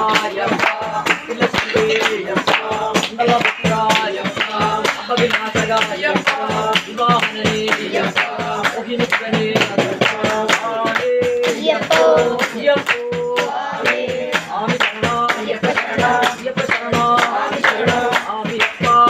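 Devotional song: voices singing over fast, steady hand percussion with a jingling, tambourine-like beat.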